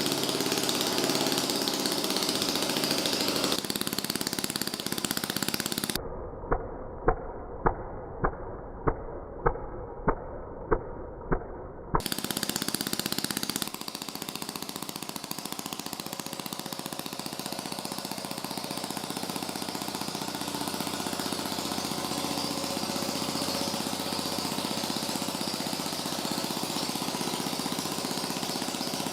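Steady mechanical buzzing noise, broken for a few seconds by a muffled stretch with eight sharp knocks about two-thirds of a second apart, after which the buzzing resumes.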